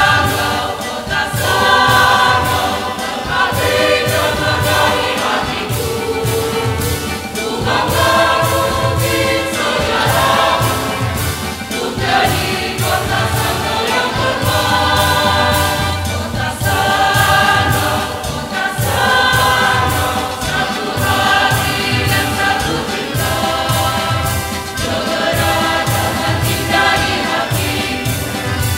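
Mixed choir singing in parts, with a steady beat running under the voices.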